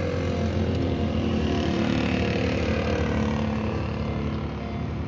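Electric seat motor of a 2019 Honda Civic's power driver's seat running with a steady low hum as the seat slides forward and back.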